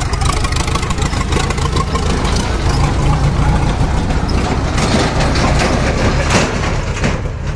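Old tractor engine running with a heavy, steady low rumble as it pulls a loaded trailer away.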